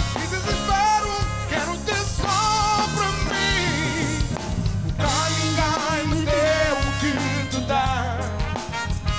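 A man singing a song with a live band: trumpet and trombone, bass guitar, drums, congas and piano.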